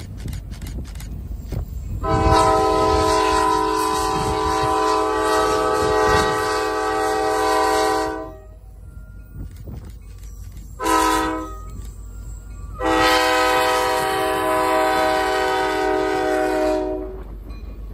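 Diesel locomotive air horn sounding the grade-crossing warning as the train approaches: a long blast about two seconds in, a short blast, then another long blast. The train's low rumble runs underneath and grows as the locomotives near the crossing.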